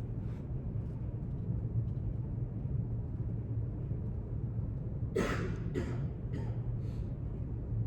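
Steady low rumble of library room ambience. About five seconds in come four short rustling sounds, about half a second apart.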